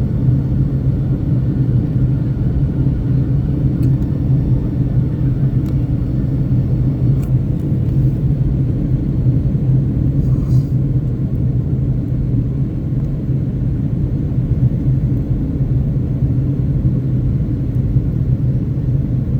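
Steady low rumble with an even hum from a Boeing 757-200's engines and airflow, unchanging throughout.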